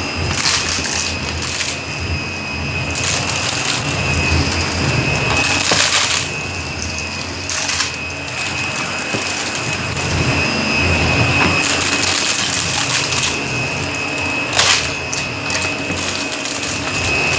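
Shark upright vacuum cleaner running steadily with a constant high whine, crunching and crackling in repeated surges as it sucks debris out of a carpet.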